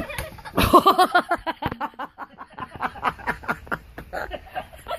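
A person laughing hard in a long run of quick, repeated bursts.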